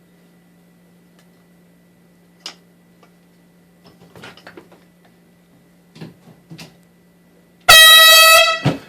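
A steady low hum with a few faint clicks and knocks, then near the end a single very loud blast of about one second from a car air horn fed by an air compressor. It is one steady pitched tone that cuts off sharply.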